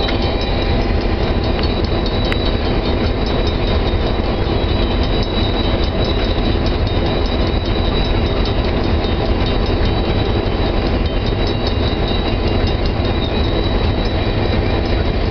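Diesel locomotive running, heard from inside its cab: a steady, loud low engine rumble with a thin high whine running over it.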